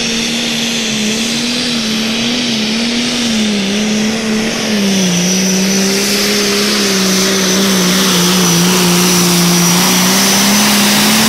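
International 1486 super stock pulling tractor's diesel engine running flat out under load. The engine note holds steady, sags slightly about halfway through and climbs a little near the end, with a high steady whine over it.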